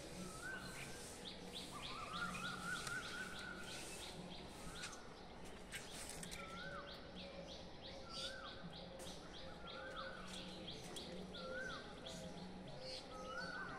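Birds calling: a short rising-and-falling call repeats about every second and a half over quick, high chirping, with a faint low hum underneath.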